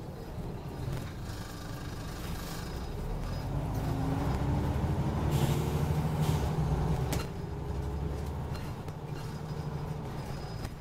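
Scania OmniCity single-deck bus heard from inside the saloon: the diesel engine and drivetrain grow louder and rise in pitch as the bus pulls, with a short hiss of air about halfway through. The engine note then drops back about seven seconds in.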